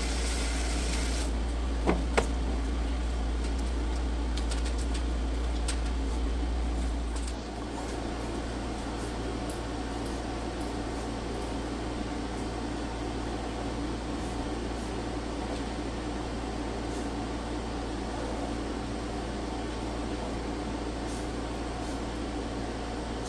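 A steady electric hum with a hiss over it. The hiss drops away about a second in, two sharp clicks come about two seconds in, and the low hum changes pitch about seven seconds in.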